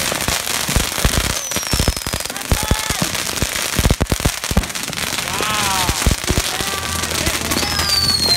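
Firecrackers and fireworks going off in a dense, uneven string of bangs and crackles. High whistles fall in pitch about a second and a half in and again near the end.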